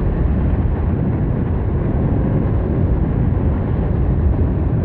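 Steady wind rush on the microphone of a moving Honda Beat FI scooter: a loud, even low rumble of wind and road noise with no distinct engine note.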